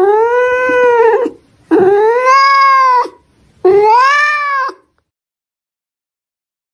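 Domestic cat meowing three times: long, drawn-out meows, each rising then falling in pitch.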